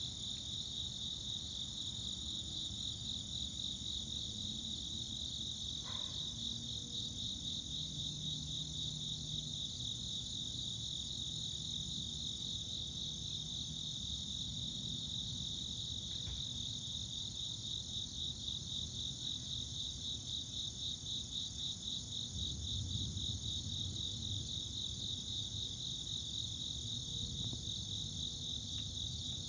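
Steady chorus of outdoor insects, a fast, evenly pulsing high trill that never lets up. Under it, a soft low rumble swells briefly about three-quarters of the way through.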